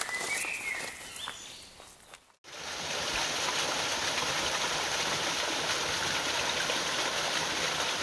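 Small mountain-stream waterfall a few metres high, splashing steadily into its pool. It comes in suddenly about two and a half seconds in. Before that there is quieter water noise with a brief, high, rising chirp.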